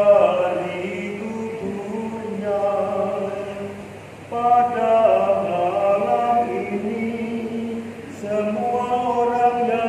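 Sung Catholic liturgical chant, held notes in phrases, with short breaks about four and eight seconds in.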